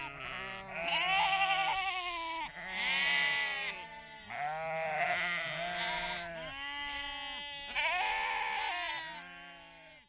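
A flock of sheep bleating, several calls overlapping, each with a quavering pitch.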